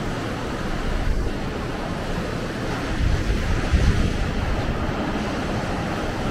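Gulf of Mexico surf breaking on the beach as a steady wash, with wind buffeting the microphone in gusts, hardest about three to four seconds in.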